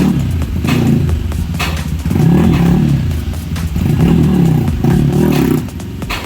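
Rusi RC250 motorcycle engine, freshly fitted with a bore kit and racing cam, running and being revved up and down, with sharp cracks every second or so.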